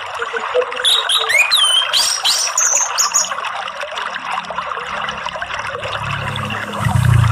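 Steady trickle of running water, with a short run of bird whistles that slide up and down about one to three seconds in, and a low rumble near the end.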